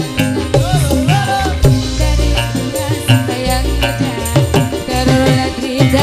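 Live band music: a steady shaker rhythm over drums and a deep bass line, with a wavering melody on top.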